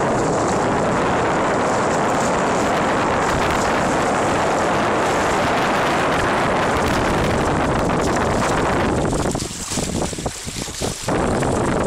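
Wind buffeting the microphone on a sailboat under way, over water rushing along the hull. The wind eases for about two seconds near the end, then picks up again.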